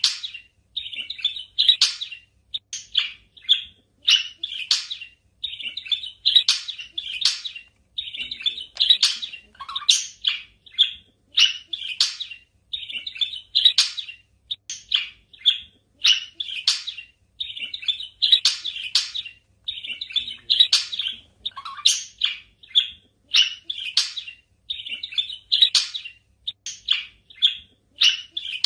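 Pet budgerigars chirping and chattering: quick runs of short high chirps in clusters, with brief gaps between them.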